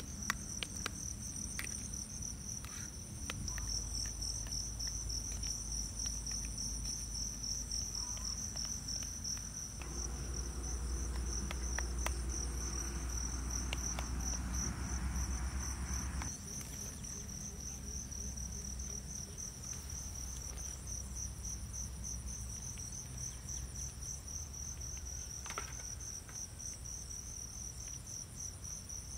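Field insects trilling without a break, a high, fast-pulsing chirr that holds steady throughout, with a few light clicks of a spoon against a metal bowl.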